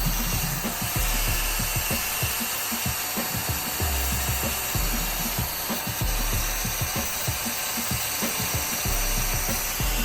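Continuous scraping and rubbing of a tool against metal brake parts, made of many quick, irregular strokes.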